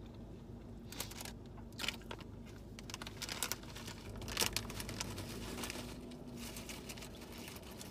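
SunChips bag crinkling, with irregular crackles as it is handled and opened.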